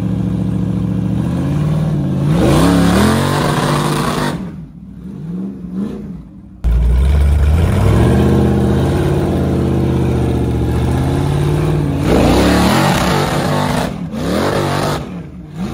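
A rock buggy's engine revving hard in bursts on a steep rock ledge climb. It runs steadily, then climbs in pitch around two seconds in and again around twelve seconds in, easing off after each. It falls away briefly before jumping back in suddenly about six and a half seconds in.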